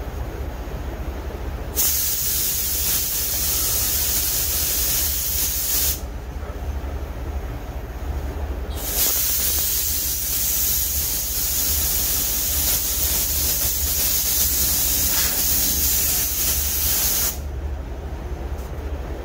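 Gravity-feed paint spray gun hissing as the trigger is held on two long passes along a truck door, the second longer. A steady low hum continues underneath.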